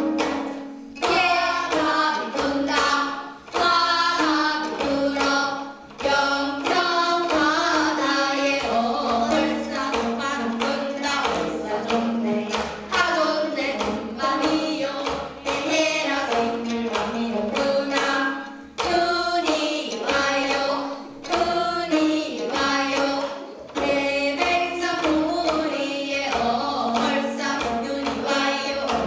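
Gayageum byeongchang: a group of girls singing a Korean folk song while plucking gayageum, the Korean twelve-string zither. The plucked strings and the singing run in phrases, with brief dips between them.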